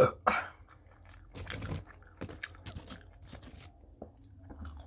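A person chewing and crunching curly fries, with two loud crunches right at the start and softer, scattered chewing sounds after.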